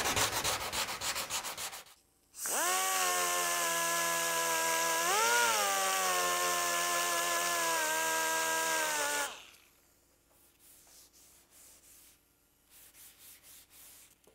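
Quick rhythmic strokes of hand sanding on a steel truck cab pillar. After a short gap a die grinder runs for about seven seconds with a steady whine and hiss as it grinds out rust pits, its pitch briefly rising and falling about halfway. Then it stops and only faint rubbing follows.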